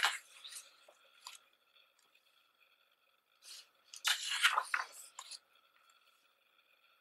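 Pages of a photobook being turned by hand: a short paper rustle at the start and a longer, louder rustle about four seconds in.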